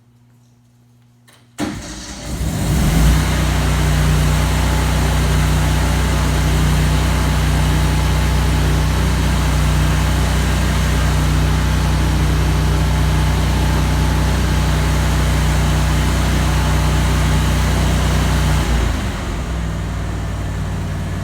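A stick-welding arc with 3/16-inch 5P+ rod is struck about a second and a half in. It crackles and hisses loudly for about 17 s over the engine-driven welder's steadily running engine, at a setting of about 250 amps that is far too hot for that rod. Near the end the arc breaks off and the engine keeps running.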